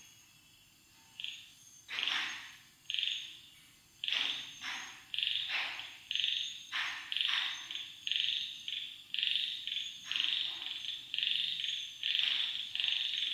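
Frogs calling in a quick series of short calls. The calls are sparse at first, then come one after another at about two a second from around five seconds in.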